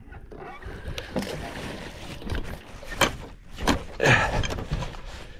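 Splashing water and sharp knocks as a hooked threadfin salmon is brought alongside a boat and the landing net is swung out to it. There are several separate clunks, and the loudest knock-and-splash comes about four seconds in.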